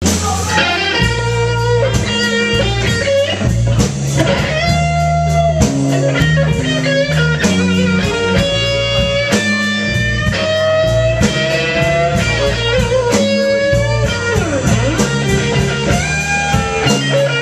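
Live blues band jamming a slow blues: electric guitar lead with sustained and bent notes over bass guitar and drums.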